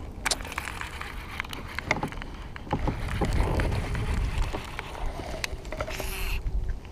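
Sounds aboard a fishing kayak on the water: a steady low rumble with water noise and scattered light clicks and knocks against the hull, with a brief hiss near the end.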